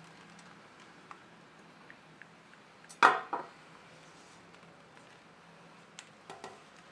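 A plastic keyboard case and a screwdriver being handled on a tabletop. A few light clicks, then a sharp hard clatter with a quick second knock about three seconds in, and a few softer knocks near the end.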